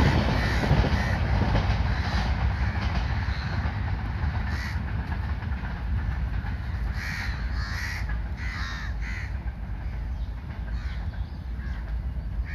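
Rumble of a passing train fading away, with crows cawing several times partway through.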